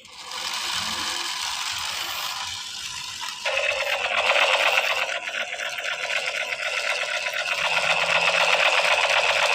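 A fast, even mechanical rattle that sets in about three and a half seconds in and grows louder, after a quieter steady hiss.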